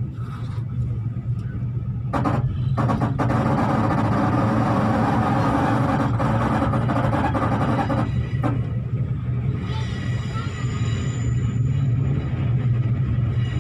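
Interior of a moving V/Line passenger train: the steady low rumble of the train running on the rails. From about two seconds in to about eight seconds, louder wheel-and-rail noise swells over it. A faint high whine comes in near the end.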